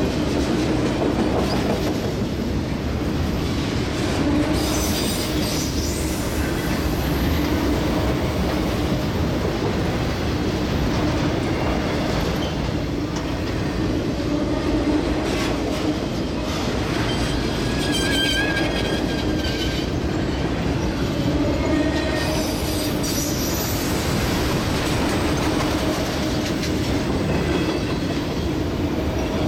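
Freight train of autorack cars rolling past close by: a steady rumble and clatter of steel wheels on the rails, with brief high wheel squeals several times, one longer squeal a little past the middle.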